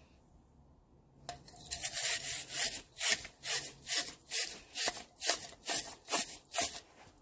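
Wire tube brush scrubbing back and forth inside the metal tube of a 1972 Honda CL70's twist-throttle grip, scouring rust from the bore. The scraping starts about a second in and goes on in even strokes, about two a second.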